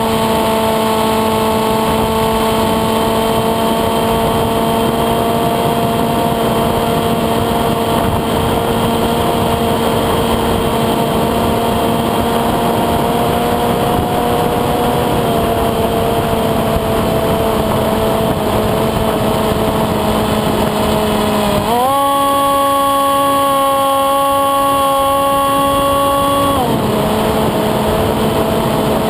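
Steady whine of a radio-controlled flying wing's electric motor and propeller in flight, over a rush of wind. About three quarters of the way through the pitch steps up as the throttle opens, holds for about five seconds, then drops back.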